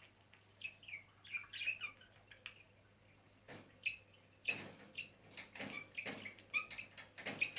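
Pet budgerigars chirping and chattering in many short, quick calls, with a few brief noisy clicks among them.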